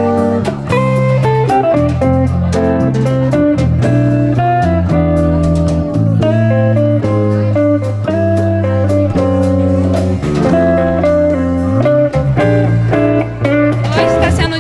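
Blues music led by guitar, with melody notes held over a continuous low line.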